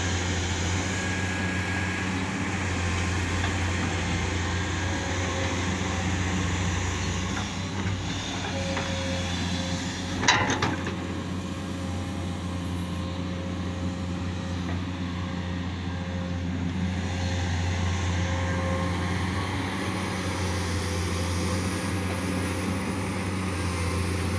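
Komatsu PC200 hydraulic excavator working, its diesel engine running steadily with a faint steady whine over the low drone. A single sharp knock comes about ten seconds in.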